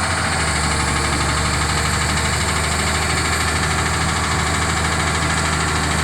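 Diesel engine of heavy earthmoving equipment running steadily at a constant speed.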